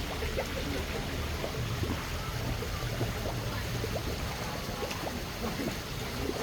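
Water trickling and splashing: a steady rush with many small drips and splashes throughout.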